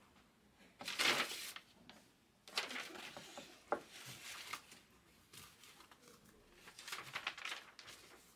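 Packaging being handled off-camera: crinkling and rustling in three bursts, about a second in, again from about two and a half to four and a half seconds with a sharp click in the middle, and again around seven seconds.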